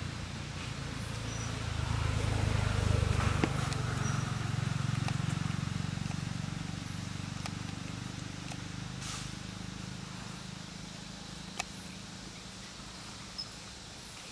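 Low motor rumble that swells about two seconds in and slowly fades away, with a few scattered small clicks and rustles.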